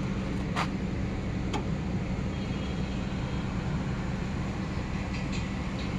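An engine running steadily with a low, even drone, with a few faint clicks over it.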